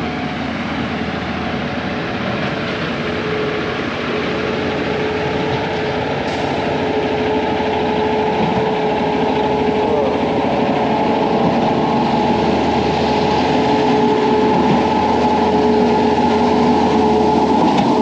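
Heavy diesel engines of concrete mixer trucks and a concrete boom pump running steadily under load, with a sustained droning tone that gets gradually louder.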